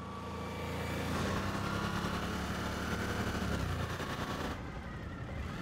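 Motorcycle engine running hard through a curve, its firing pulses swelling about a second in and the pitch dropping as it goes by, around three and a half to four and a half seconds in.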